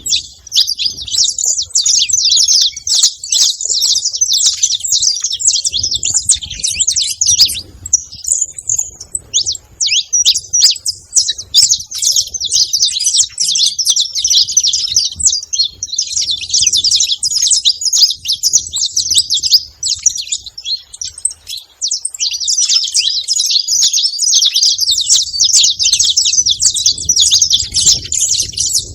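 Saffron finch singing: a long, fast run of high, scratchy chirps, with short breaks around a third of the way in and again about three quarters through.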